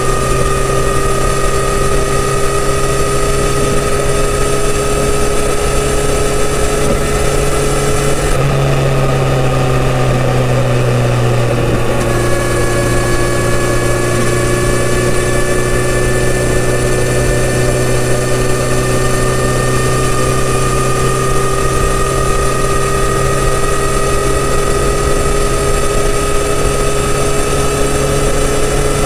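Kawasaki Z900RS inline-four engine running through its stock full exhaust system while cruising. About eight seconds in the engine note drops as the revs fall, then it climbs slowly and steadily again.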